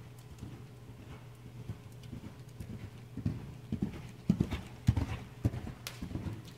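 Hoofbeats of a Percheron/Quarter Horse cross gelding cantering on soft arena sand: a rhythm of dull thuds that grows loudest about four to five seconds in as the horse passes close by, then fades as it moves away.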